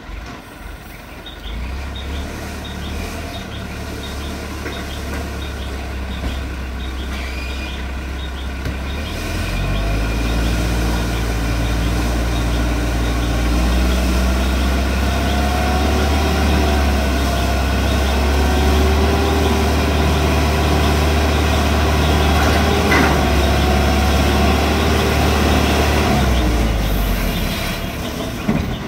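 Heavy diesel vehicle engine running under load during a truck recovery. Its revs and loudness rise about a third of the way in and hold steady, then drop near the end.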